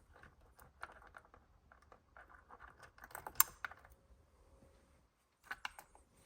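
Light plastic clicking and rattling of steering column trim pieces and connectors being handled and fitted, with one sharper snap about three and a half seconds in and a few more clicks near the end.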